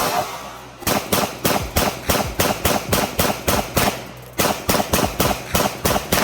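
Glock 17 Gen 3 9mm pistol firing hand-loaded rounds in quick succession, about three shots a second. A single shot is followed by a string of about ten, a brief pause near the middle, then about seven more.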